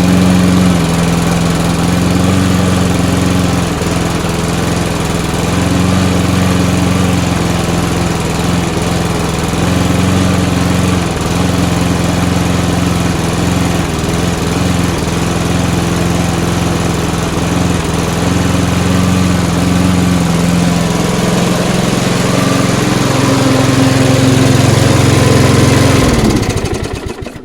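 A rebuilt Mountfield self-propelled petrol lawnmower's single-cylinder engine runs steadily but slightly unevenly, a sign that the governor still needs adjusting. Near the end it winds down and stops.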